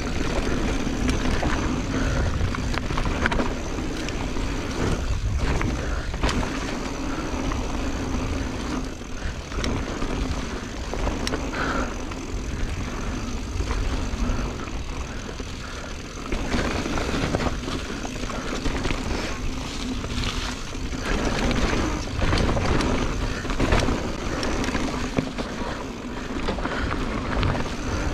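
Mountain bike riding a dirt trail: wind rushing over the microphone with tyre noise and frequent knocks and rattles from bumps.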